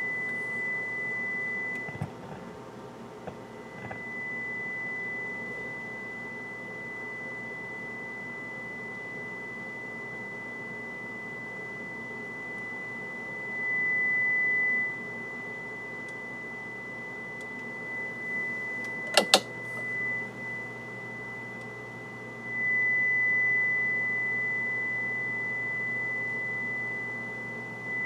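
A steady, high-pitched sine-wave test tone, swelling louder for a second or two a few times. Test-lead clips on the amplifier chassis give a few soft clicks near the start and one sharp click a little past the middle, after which a low mains hum comes in under the tone.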